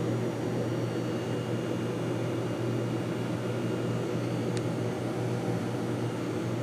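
Steady low hum of room background noise, with one faint click about four and a half seconds in.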